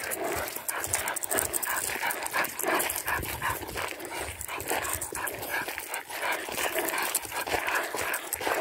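Labrador puppy breathing and panting in quick, irregular bursts while walking with a stick in its mouth, over the crunch of footsteps on gravel.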